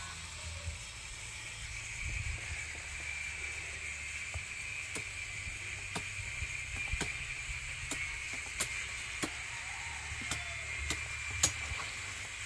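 Sharp knocks of a sickle hacking at the stalk of a young-coconut bunch, about one a second from about five seconds in, the last ones the loudest. Under them run a steady high-pitched hum and a low wind rumble on the microphone.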